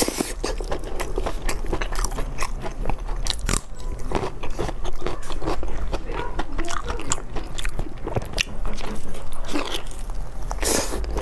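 Close-miked biting and chewing of sauced pork large intestine: a dense run of short mouth clicks and smacks as she bites, pulls and chews the chewy casing.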